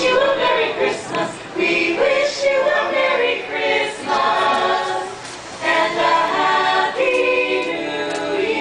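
Small mixed-voice group of carolers singing a Christmas carol a cappella in harmony, in phrases with short breaks between them.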